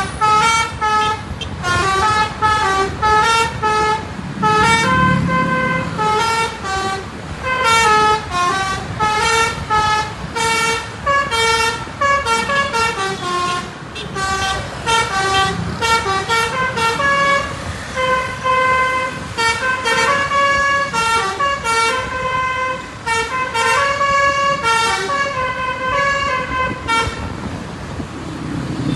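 Bus multi-tone 'telolet' horn (Basuri type) playing a tune: several horn tones sound together and change pitch every fraction of a second. It stops about two seconds before the end.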